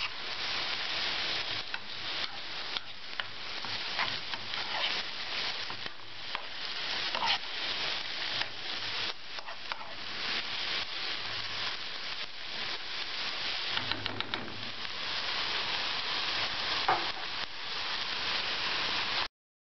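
Chopped onions sizzling in oil in a frying pan, stirred with a metal spoon whose strokes come through over the hiss now and then. The sizzle cuts off suddenly near the end.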